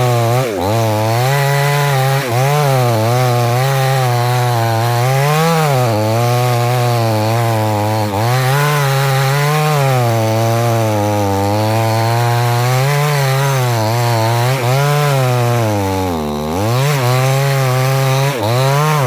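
Chainsaw engine running under load while cutting wood, its pitch rising and falling over and over as the load changes, with one deeper drop about sixteen seconds in.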